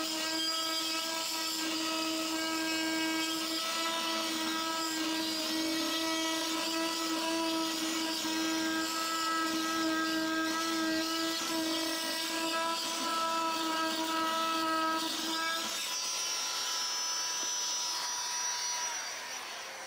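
Fein Multimaster oscillating multi-tool with a segment saw blade raking grout out of the joints between wall tiles: a steady buzzing whine over a gritty hiss. About sixteen seconds in the tone changes, and it fades out at the very end.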